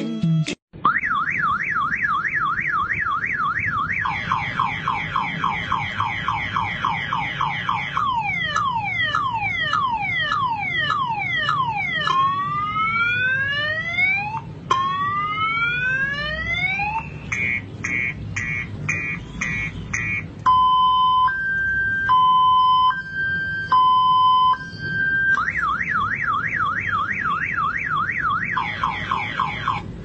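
Motorcycle's multi-tone alarm siren cycling through its tones. It starts with a fast warbling wail, then gives slower falling sweeps, long rising whoops, short rapid beeps and a two-tone hi-lo, and returns to the fast warble near the end.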